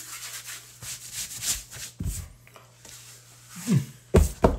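Hands rubbing and brushing over skin and cut beard hair in a series of soft, scratchy strokes, with a few heavier thumps near the end.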